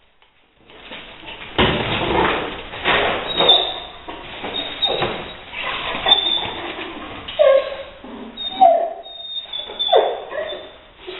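Rottweiler barking and whining in short bursts about every second, mixed with knocks and thumps.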